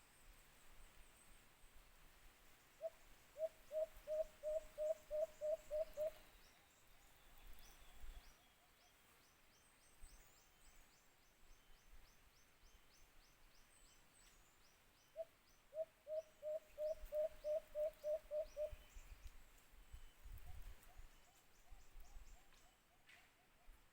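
White-eared brown dove calling: a series of about ten short, evenly spaced hoots, given twice, with a fainter third series near the end. Faint, fast, high-pitched chirping of another bird runs behind.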